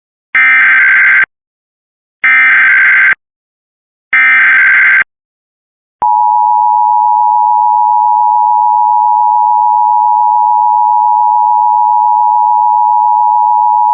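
Emergency Alert System signal. It opens with three SAME header data bursts, each about a second of buzzing, warbling data tones, spaced about two seconds apart. About six seconds in, a steady EAS attention tone starts, holds for about eight seconds and cuts off suddenly. The header encodes a statewide child abduction emergency (Amber Alert).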